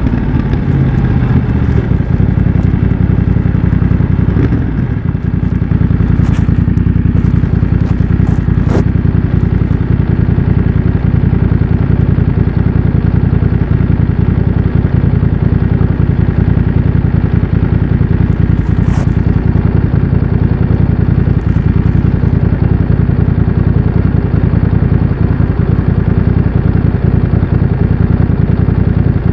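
BMW F900 XR's parallel-twin engine running through a MIVV X-M1 aftermarket exhaust under way, held at a steady pitch. The level drops briefly about four to five seconds in, then the engine runs on steadily.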